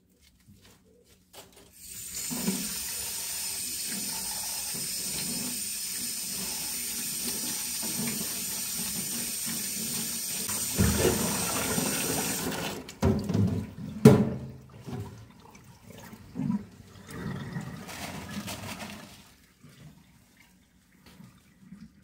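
Tap water running steadily into a stainless steel sink and onto a steel bowl of mallow leaves, starting about two seconds in and cutting off about twelve seconds in. Then come irregular splashing and clatter as the leaves and bowl are handled, with a sharp knock about fourteen seconds in.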